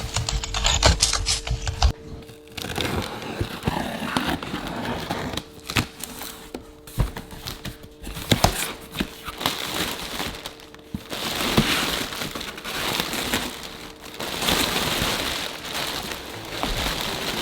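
Packaging being handled and opened: crinkling and rustling of plastic and paper wrapping, with scattered sharp clicks and crackles, in bouts that grow louder near the end.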